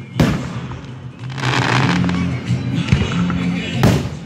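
Aerial firework shells going off: a loud bang just after the start and another near the end, with a stretch of hiss and crackle between them. Background music plays underneath.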